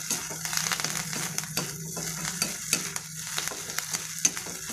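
Podi idli cubes being stirred and tossed with a steel ladle in a steel kadai over high heat. The ladle scrapes and taps the pan again and again over a steady sizzle of hot oil and ghee, as the idli is fried until crisp.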